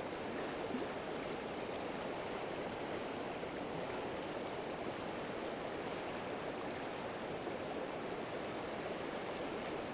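River water rushing steadily over a stony riffle: an even, unbroken rush of flowing water.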